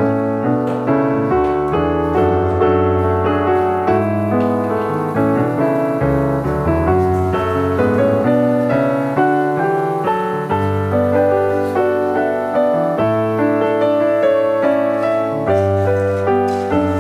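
Background piano music: a steady run of notes, each struck and fading.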